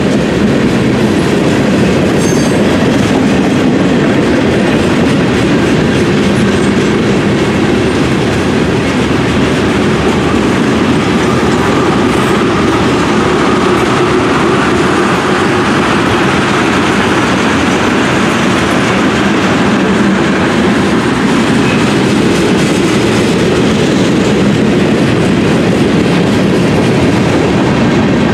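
Freight train rolling past: the wheels of boxcars, tank cars and covered hopper cars clatter over the rail joints in a steady, loud stream of noise.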